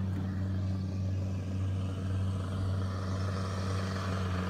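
Sherp amphibious ATV's diesel engine running at a steady, even drone as the vehicle swims through the swamp.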